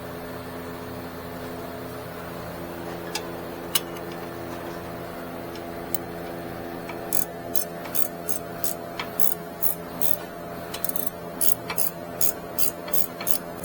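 Hand ratchet wrench clicking as the rear brake caliper bracket bolts are tightened by hand. A few single clicks come first, then from about halfway a quick run of clicks, two or three a second. A steady hum lies underneath.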